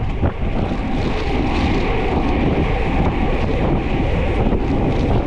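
Wind buffeting an action camera's microphone while riding a bicycle: a loud, steady rushing roar with no clear strokes or tones.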